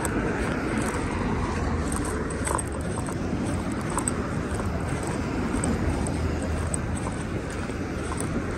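Urban street ambience heard while walking: a steady low rumble of road traffic, with a few faint clicks.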